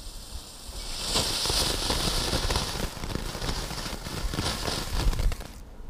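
A ground firework hissing and crackling as it sprays sparks. The hiss starts about a second in and cuts off abruptly shortly before the end.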